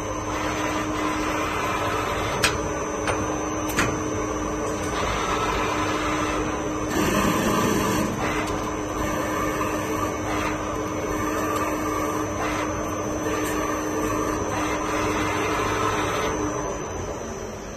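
ALCK6140X1000 CNC lathe running: a steady motor hum with a whine that stops shortly before the end. Two sharp clicks come a few seconds in.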